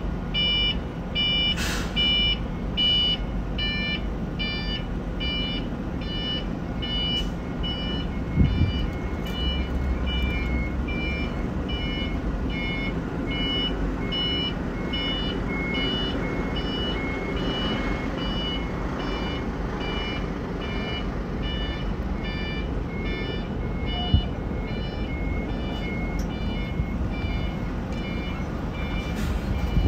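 Electronic warning beeper sounding a steady series of short, high, multi-tone beeps, about three every two seconds, over a low rumble. There is a single thump about a third of the way in.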